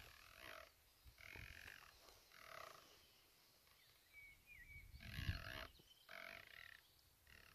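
Elevation turret of a Delta Stryker HD 5-50x56 riflescope being dialed up for elevation, its detents ratcheting faintly in about five short runs of rapid clicks.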